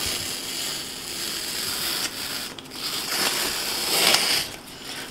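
Painter's tape being peeled off a wall: a sustained tearing rasp with a short break about two seconds in, swelling again before it dies away near the end.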